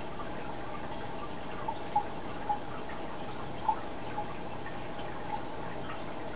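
Aquarium water sounds: a steady hiss with a handful of small bubbling plips scattered through it.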